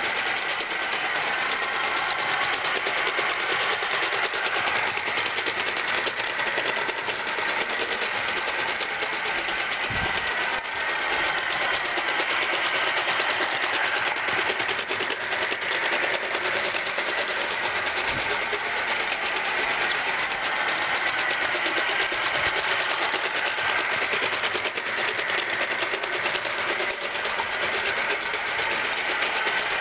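Hornby Rocket live-steam model locomotive running on garden track: a steady, rapid hissing chuff of steam exhaust with a fine mechanical clatter.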